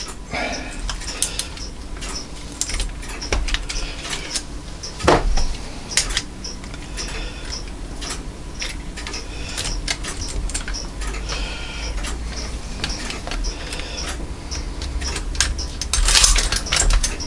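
Light metallic clicks, taps and scraping from a brass grandfather clock movement being handled while a screwdriver works old gut line out of its winding barrel. A louder clatter comes about five seconds in and again near the end.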